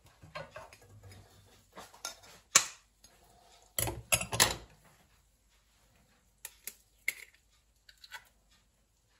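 Kitchen handling sounds around an air fryer basket: a sharp click about two and a half seconds in, a short clatter of knocks about a second later, then a few light clicks near the end.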